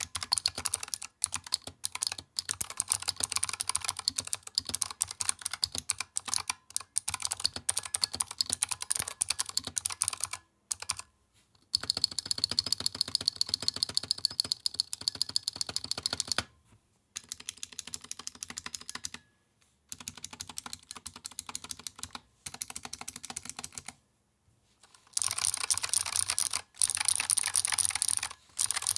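Fast typing on a Razer Huntsman Mini keyboard with Razer optical clicky switches and PBT doubleshot keycaps: a dense, sharp clicking in runs broken by a few short pauses, and the last few seconds are brighter and louder.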